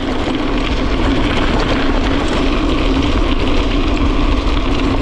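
Gravel bike rolling fast on a dirt forest road: steady tyre noise on gravel with wind rushing over the microphone, growing louder over the first half second and then holding.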